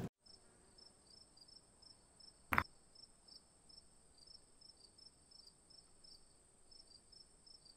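A single sharp click of carom billiard balls striking each other, about two and a half seconds in. Under it, faint high-pitched chirping, about three chirps a second, over a steady high whine.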